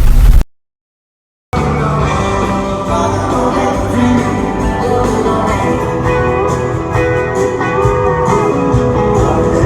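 A low rumble cuts off abruptly into about a second of dead silence, then a song with guitar and singing starts and plays steadily.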